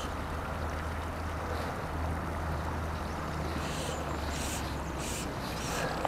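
Steady rushing of a fast-flowing river, with a constant low rumble underneath.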